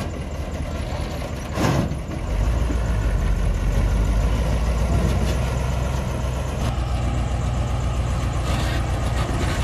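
Heavy diesel dump truck engine running as the loaded truck pulls away through sand. There is a short hiss about a second and a half in, after which the engine grows louder under load.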